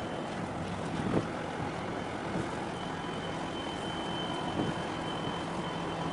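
Steady low drone of ship engines with the wash of water and some wind on the microphone; a thin high-pitched whine is held through the second half.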